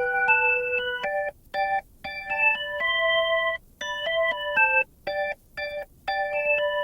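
Background music: an electronic keyboard or organ playing a melody of sustained chords and notes with short breaks between phrases.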